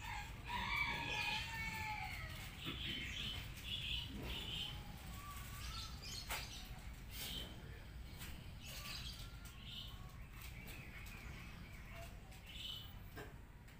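Birds chirping and calling again and again, with gliding calls in the first couple of seconds, and chickens in the background over a low steady rumble.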